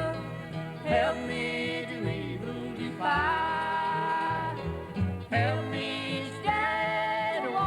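Country gospel song playing, with guitar and a melody line that slides up into its notes over a steady bass.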